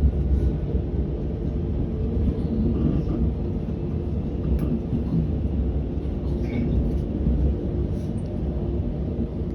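Steady low rumble of a moving vehicle heard from inside, with no distinct events standing out.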